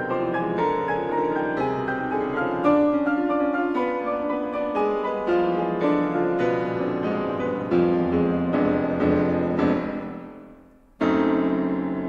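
Solo piano playing classical music: single notes and chords that die away almost to silence about ten and a half seconds in, then a loud chord struck about eleven seconds in that rings and fades.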